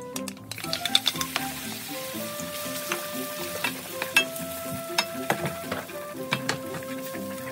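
Beaten egg sizzling in hot oil in a frying pan, the sizzle starting about half a second in, while a wooden spatula stirs and scrambles it, scraping and tapping against the pan. Background music plays underneath.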